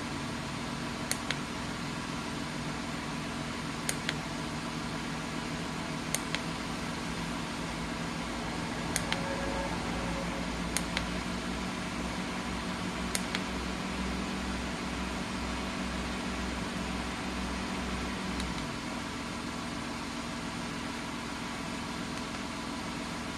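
Small DC-motor car fan running with a steady hum, its speed button clicked about every two to three seconds, mostly as quick double clicks, while the speed is stepped through its settings. The lower hum grows stronger from about nine seconds in and drops away a little after eighteen seconds.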